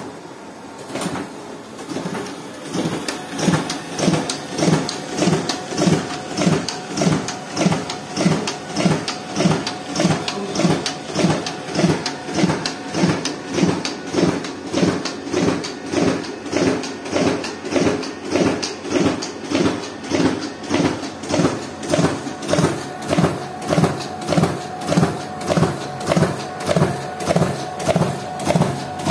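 Riso CV3230 digital duplicator (stencil printer) running a print job. Over the first two or three seconds it builds up, then settles into a steady mechanical beat of about one and a half cycles a second as it feeds and prints sheets.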